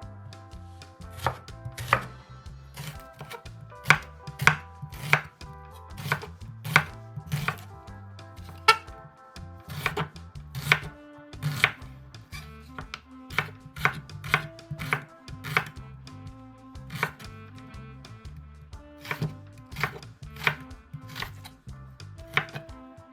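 Knife chopping on a cutting board: irregular sharp strokes, about one or two a second, some much louder than others.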